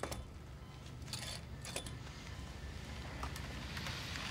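Quiet room ambience: a steady low hum with a few faint, scattered clicks and rustles.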